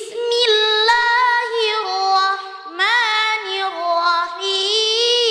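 A boy reciting the Quran in the melodic chanted style, holding long ornamented notes that glide and turn in pitch. There is a short break about two and a half seconds in.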